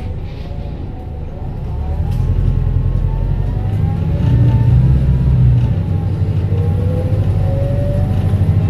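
Volvo B5TL bus engine running under load, growing louder about two seconds in as the bus accelerates, with whining tones gliding up and down in pitch above it and one rising whine near the end.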